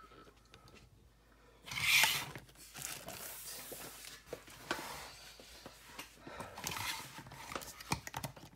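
Hands handling plastic robot action figures: a loud burst of rustling about two seconds in, then softer rustling with light plastic clicks and taps.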